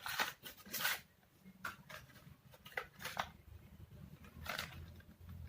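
Plastic packaging of a fingerboard crackling and rustling in short irregular bursts as it is worked open by hand, loudest in the first second.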